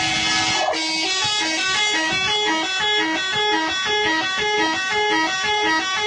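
Telolet bus horn playing a fast, repeating melody of short, steady notes that alternate between a few pitches.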